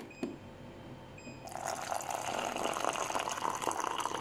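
Two light knocks, then, about a second and a half in, hot water starts pouring in a thin stream from a stainless steel vessel into a plastic jug and runs on steadily as it fills over Milo powder.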